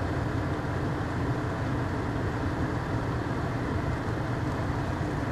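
A steady low mechanical hum and rumble that does not change, with no distinct knocks or events.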